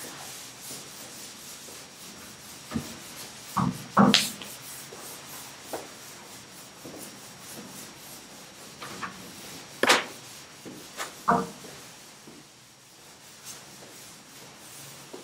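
Chalkboard being wiped with a cloth: steady scratchy rubbing across the board, broken by a few sharp knocks, the loudest about four and ten seconds in.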